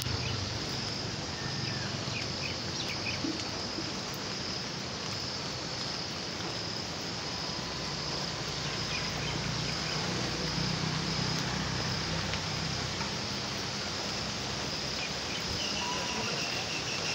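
Heavy rain falling steadily on standing water, with a steady high-pitched insect trill running through it.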